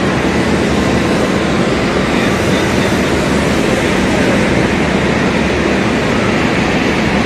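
Steady ambient noise of a busy railway station concourse: an even din of crowd and station machinery with no single distinct event.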